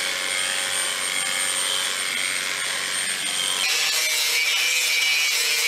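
A steady machine hum with high whining tones, which changes abruptly about three and a half seconds in to an angle grinder grinding a cow's hoof during hoof trimming. The grinder makes a hissing rasp over a motor whine whose pitch wavers as the disc bites into the horn.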